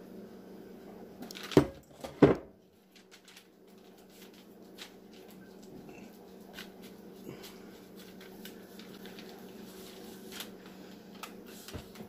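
Silicone spatula scraping and patting a damp chia-and-seed cracker mixture flat on parchment paper, soft scattered ticks and rustles. Two sharp knocks half a second apart come about a second and a half in, over a steady low hum.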